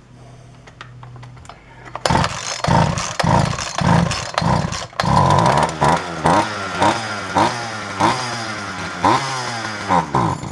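Two-stroke engine of an old Poulan chainsaw being pull-started on a few drops of fuel primed into the carburetor: about two seconds in it begins cranking and firing in quick repeated bursts, about two a second, each rising and falling in pitch, without settling into a steady run. It fires only on the primed fuel because the carburetor is not pumping fuel.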